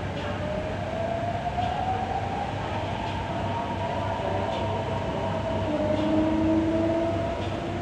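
Metro train running, heard from inside the carriage: a steady low rumble with a faint whine that rises slowly in pitch over the first couple of seconds, then holds.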